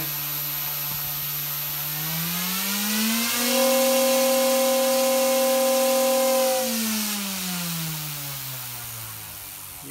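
OMPHOBBIES M2 mini RC helicopter's electric motor and main rotor spinning at zero pitch, giving a steady whine. The whine rises in pitch about two seconds in and holds at its highest and loudest for about three seconds, then winds down gradually and fades.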